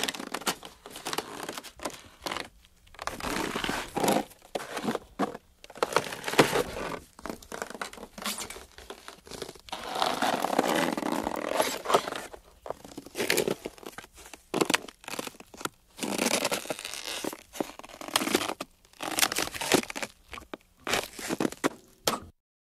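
Ice breaking and crunching: a run of irregular crunches and cracks, some short and some drawn out, with brief pauses between them. The longest crunch lasts about two to three seconds near the middle.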